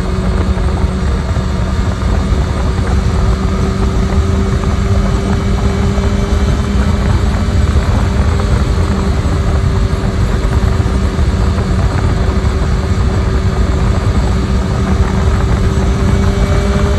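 Honda CB1000R's inline-four engine running at a steady highway cruise of about 125 to 133 km/h, its note holding an even pitch, under heavy wind rush on the handlebar-mounted microphone.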